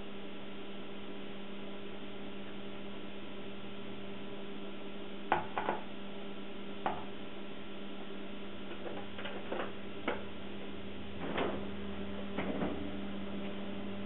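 Steady low electrical hum, with a few scattered light knocks and clunks as a measuring cup and a milk carton are handled and set down in a plastic mixing bowl on the counter.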